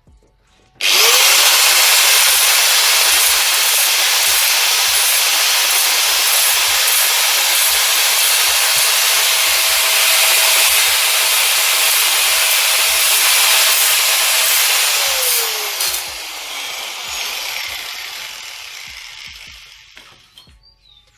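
Electric angle grinder switching on with a quick spin-up and grinding or sanding down metal welds on a bicycle frame, running steadily with a loud, harsh hiss over a steady motor whine. Near the end it is switched off and its motor winds down, the whine falling in pitch as the sound fades out.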